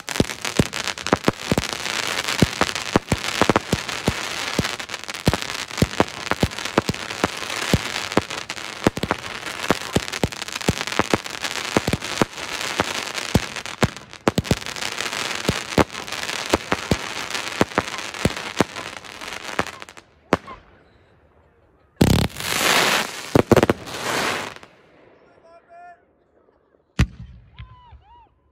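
Aerial firework shells bursting: dense crackling full of sharp bangs in quick succession for about twenty seconds. After a short break comes a louder run of bursting that lasts a couple of seconds.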